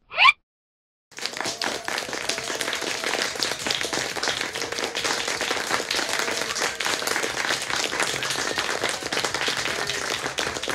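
A short rising swish, then from about a second in the dense clapping of a crowd's applause.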